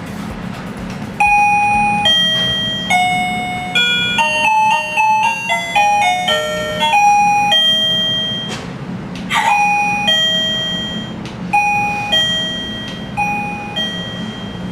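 KERUI M525 wireless doorbell receiver playing its electronic chime tunes: two-note high-low ding-dongs, a quicker little melody between about four and seven seconds in, then more repeated ding-dong pairs. There is a short click about nine seconds in and a low hum underneath.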